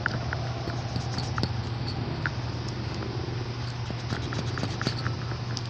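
Light, irregular clicks and scratches from hand work on a shoe's new sole, over a steady low hum.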